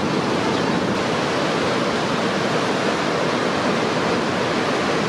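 Ocean surf: waves breaking and whitewater washing up the shore, an even, steady rushing.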